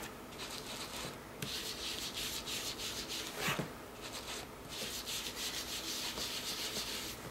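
Ink blending tool's foam pad rubbed over paper in short repeated strokes, a hiss with each stroke and a few brief pauses: distress ink being worked into the paper.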